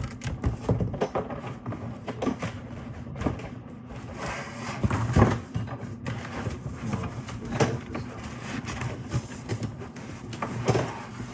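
Cardboard box being handled and worked open: irregular rustling, scraping and knocks of the box and its flaps, the loudest knock about five seconds in.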